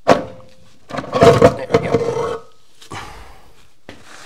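A part being pulled out of a 6L90E transmission case, dragging and squealing as it catches on the valve-body seals. There is a sharp knock at the start, then a louder scraping squeal of about a second and a half that stops abruptly.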